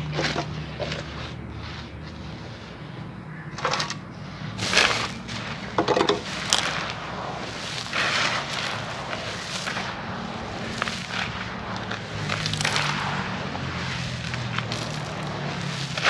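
Hands digging and raking through dry crushed concrete rubble and grit in a plastic tub: irregular gritty crunching and scraping, in short bursts.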